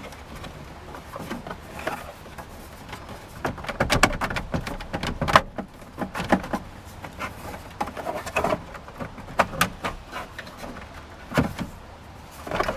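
Front dash bezel of a 2001 Jeep Wrangler being worked loose by hand: a run of irregular clicks and knocks, busiest in the middle, with a last knock near the end.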